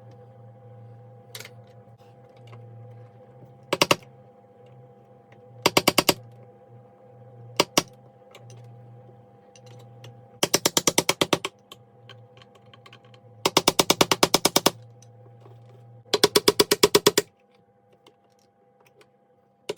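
Short bursts of rapid, evenly spaced clicking, six in all and each lasting up to about a second, over a steady low hum: a ratchet-like rattle of tools working on an Electrolux Twin Turbo vacuum cleaner as it is taken apart.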